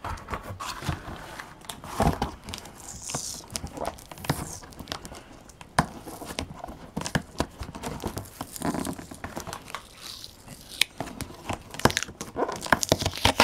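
Cardboard box being worked open with a small key instead of a box cutter: irregular tearing, scraping and crinkling of cardboard, tape and plastic, with scattered sharp clicks.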